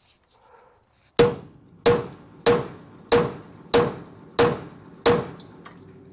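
Seven hammer blows on metal, about two-thirds of a second apart, each ringing briefly. They are driving at a stuck clutch pivot that is not coming free.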